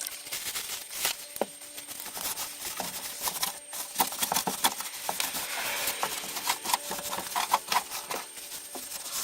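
Rag wiping dusty plastic interior trim in a car: a rubbing hiss with scattered light clicks and knocks of the plastic being handled.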